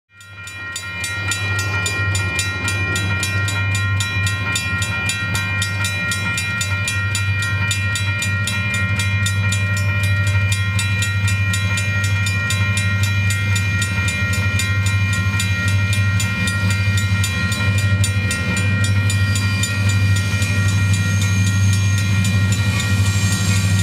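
Railroad grade crossing bell ringing with rapid, even strikes over a low steady rumble.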